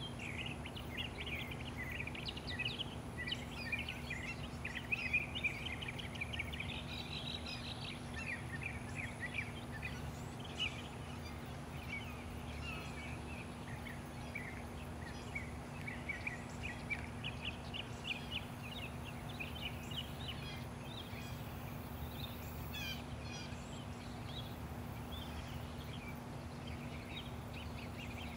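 Outdoor ambience of many small birds chirping, in short rapid notes that come thicker in the first few seconds and again around the middle, over a steady low background hum.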